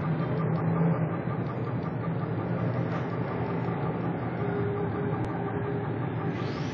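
Twin-cup bubble tea shaker machine running, its two stainless-steel cups shaking back and forth: a steady motor hum with a fast, even rattle.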